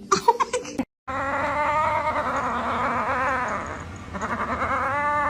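An animal's long, wavering drawn-out cry, followed by a second shorter cry that rises and falls. Both come after a brief cut to silence about a second in.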